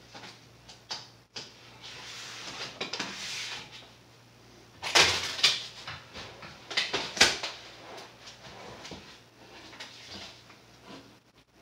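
Hands working masking tape inside an empty wooden cabinet box: rustling and scraping, with sharp knocks and taps against the cabinet wood about five seconds in and again around seven seconds, over a faint steady hum.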